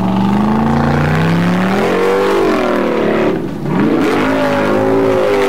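Formula Offroad hill-climb car's engine revving hard at full throttle up a steep sand bank. Its pitch climbs about two seconds in, drops sharply for a moment about three and a half seconds in, then rises again.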